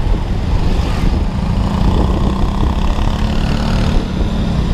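Honda Beat scooter's single-cylinder engine running at a steady cruise, mixed with road and traffic noise, with a steady low hum holding from about a second in.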